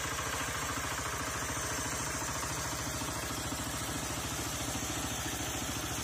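Single-cylinder diesel engine of a walk-behind tractor running steadily under load with an even, rapid beat, pulling a potato digger through the soil.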